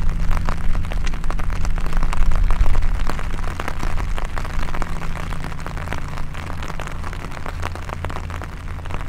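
Wind buffeting the microphone outdoors: a steady low rumble with constant crackling gusts.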